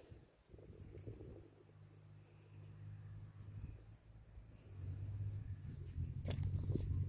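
Insects trilling in an open field: a steady high buzz with short chirps repeating every second or so. A low rumble on the microphone grows louder about two-thirds of the way through.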